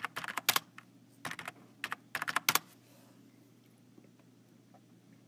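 Typing on a computer keyboard: quick bursts of key clicks for about the first two and a half seconds, then only a few faint ticks.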